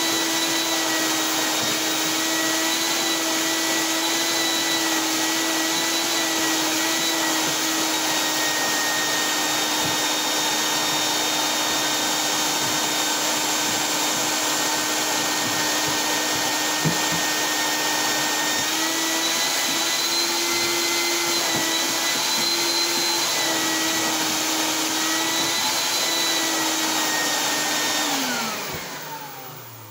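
Shop vacuum running steadily with an even motor whine, the pitch wavering a little for a few seconds past the middle. Near the end it is switched off and the motor spins down with a falling whine.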